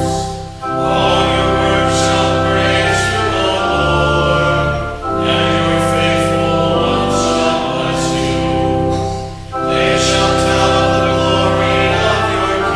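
Group of voices singing with organ accompaniment in long held phrases, with brief breaks between phrases about half a second in and again about nine and a half seconds in.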